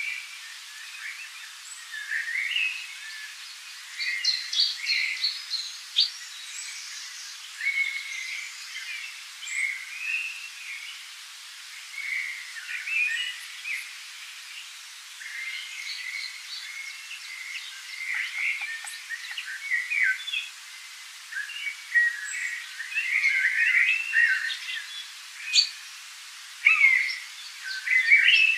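Songbirds chirping and singing: many short, varied calls and trills overlapping all through, busiest near the end.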